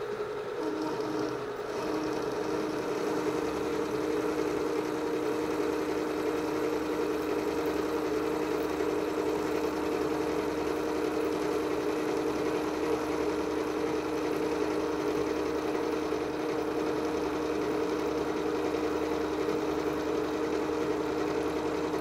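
Benchtop milling machine (Precision Matthews PM-727) running a roughing end mill through a slotting pass in the workpiece: a steady machine hum with two held tones over a rushing cutting noise, a little louder from about two seconds in.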